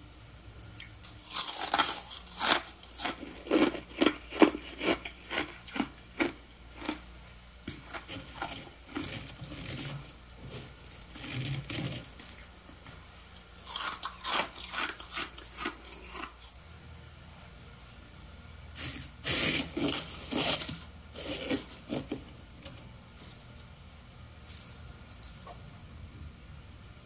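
Chunks of freezer frost being bitten and chewed: several runs of quick, crisp crunches separated by short pauses.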